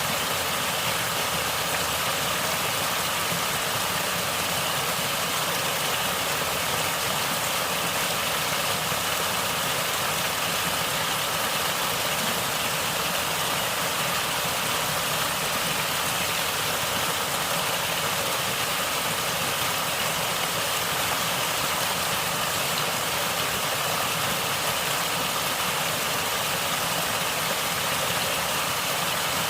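Natural water flowing and gurgling, an even, steady rushing noise.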